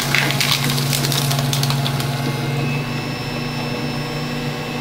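Small office paper shredder's electric motor running, its cutters chewing through a printed card with a dense crackle for the first two seconds or so. The cutting stops and the motor runs on empty with a steady hum.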